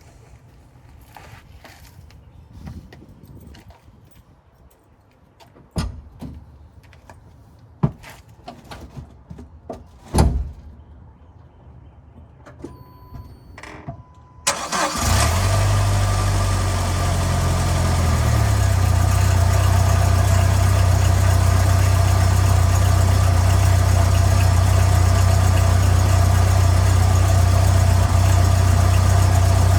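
Scattered knocks and clicks and a brief beep, then about halfway through the vehicle's engine cranks, starts and settles into a steady idle, picked up by a microphone under the vehicle at the transmission skid plate.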